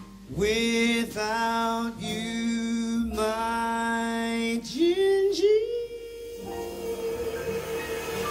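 Male jazz singer holding a series of long wordless notes with a few sliding pitch bends, over a live jazz quartet. The voice stops about six and a half seconds in, leaving the drummer's cymbals ringing on.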